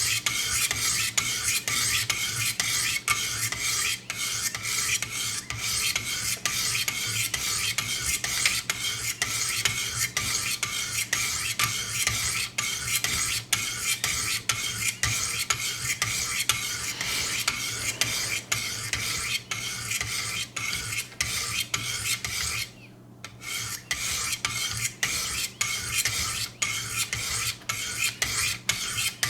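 Sharpening stones rasping along a VG-10 knife edge in quick repeated strokes, about two a second, alternating from side to side, with a short pause about three-quarters of the way through. This is the coarse first stage, raising a burr along the edge.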